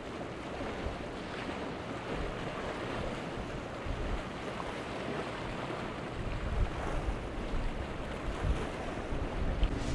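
Wind buffeting the microphone in irregular low gusts over the wash of choppy sea water, with the gusts growing stronger in the second half.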